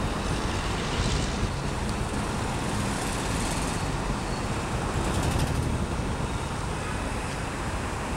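Road traffic: cars passing close by on a city street, with a steady noise of engines and tyres.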